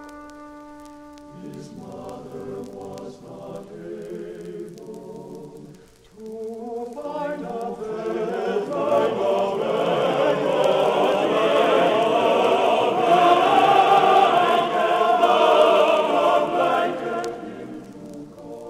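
Mixed choir singing sacred classical music with accompaniment. It starts softly in short phrases, swells past the middle to a loud full-voiced passage, and eases off near the end.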